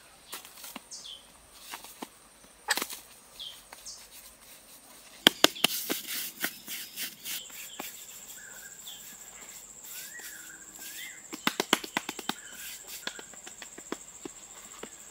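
Loose sandy soil being worked by hand and with a woven basket: clusters of scratchy scraping and sharp clicks, loudest about a third of the way in and again near the two-thirds mark. A bird chirps now and then, and a thin, steady high insect whine grows stronger about halfway through.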